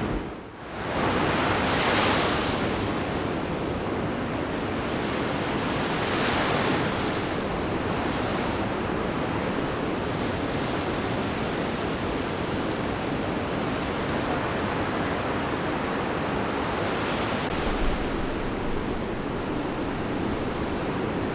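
Ocean surf breaking on the beach: a steady rush of white water, swelling louder as waves crash about two seconds in and again about six seconds in. The sound drops away briefly just after the start.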